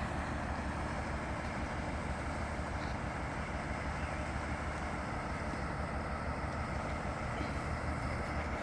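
Steady rumble of a locomotive running, with a constant low drone and no regular beat.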